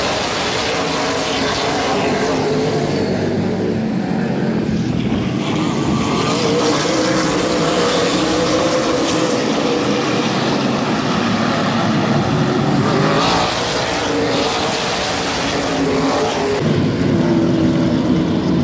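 A pack of super late model stock cars racing past, their V8 engines running hard. The sound swells as the pack goes by close at the start and again about thirteen seconds in.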